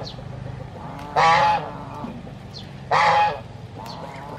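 Two loud calls from domestic poultry, each about half a second long and about a second and a half apart.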